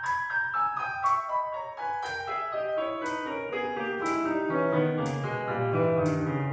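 Piano music: a flowing run of notes, each struck and fading, with lower bass notes joining about two-thirds of the way through.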